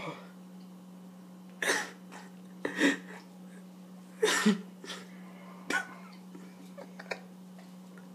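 A man coughing and spluttering in several short bursts a second or so apart, his mouth packed with a dry, powdery mouthful that he cannot swallow.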